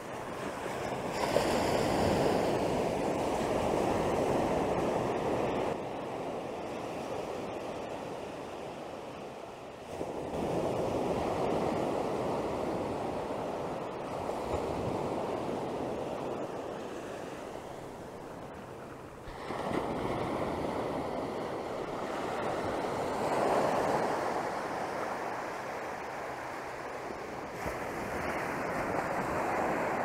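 Ocean surf breaking and washing up the sand, in repeated surges that swell and fade every eight or nine seconds.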